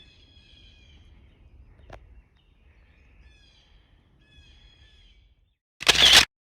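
Small birds chirping and singing in short phrases, with a single sharp click about two seconds in. Near the end comes one loud shotgun blast, the loudest thing here, cut off abruptly.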